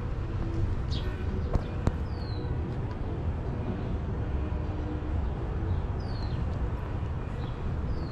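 Early-morning street ambience: a steady low rumble of distant traffic, with birds giving short, high, downward-sliding calls several times. Two sharp clicks stand out about two seconds in.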